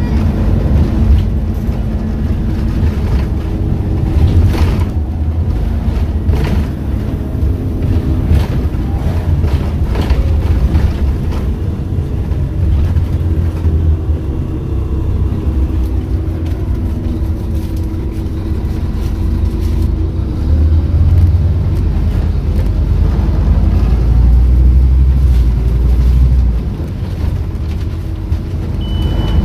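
Scania N230UD OmniCity bus under way, heard from inside: its diesel engine and ZF automatic gearbox running with a heavy low rumble, the engine note rising and falling. Occasional short knocks come from the body.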